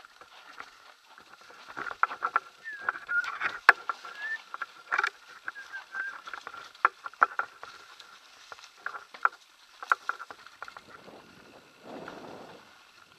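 Kona Satori 29-inch mountain bike descending a leaf-strewn forest trail: frequent rattles and knocks from the bike over roots and rocks, tyres running through dry leaves, and short squeals about three to four seconds in. A brief rushing noise comes near the end.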